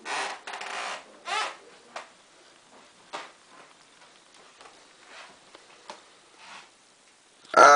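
Handling noise from a handheld compact camera: rubbing and scraping against the microphone, loudest in the first second and a half, then a few short clicks and faint rustles as it is moved about. A voice starts right at the end.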